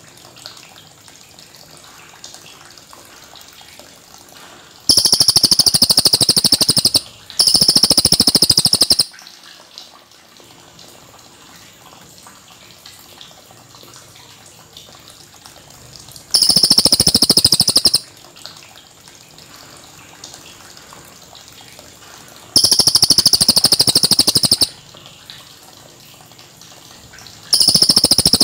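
Cililin bird singing its long rolling trill: five very rapid trills of about two seconds each, separated by pauses, over a faint steady background hiss.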